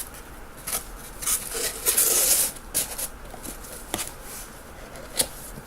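Packaging handled by hand: scattered light clicks and taps, with a longer scraping rub about two seconds in.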